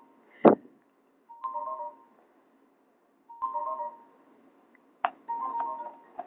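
A Nokia E50 ringtone playing through a Nokia 216 phone's small loudspeaker: a short electronic phrase that repeats about every two seconds. A sharp click about half a second in is the loudest sound, and a smaller click comes just after five seconds.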